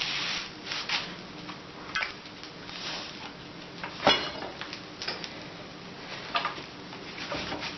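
Irregular metallic clicks and knocks of hand tools working on a seized fastener of a small lawn tractor engine, freshly soaked in penetrating oil. The clicks come every second or so, with one sharper knock about four seconds in.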